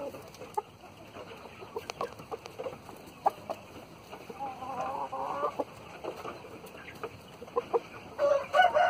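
Chickens clucking with short, scattered calls, with a longer wavering call about halfway through. Near the end a rooster starts a loud crow.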